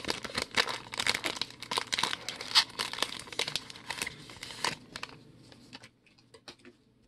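Foil wrapper of a 2020 Donruss baseball card pack crinkling and crackling as it is torn open and pulled off the cards; the crackling dies down about five seconds in, leaving a few faint clicks.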